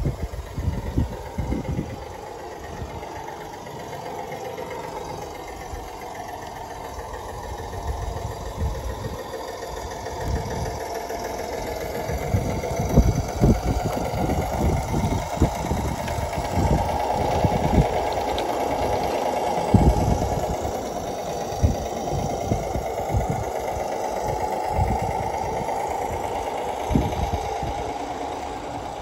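Garden-scale model diesel locomotive running along the track with an engine-like sound and scattered knocks. The sound grows louder to a peak about two-thirds of the way through, then eases off as the train passes.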